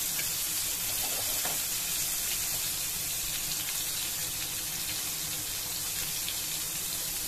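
Flour-and-rava-coated Bombay duck (bombil) fillets sizzling steadily in hot oil in a frying pan.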